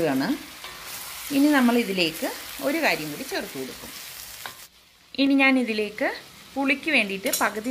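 Masala-coated chicken pieces sizzling as they dry-roast in a cast-iron pan, stirred with a wooden spatula. A voice rises and falls in pitch over it and is the loudest sound. The sizzle cuts off briefly about four and a half seconds in.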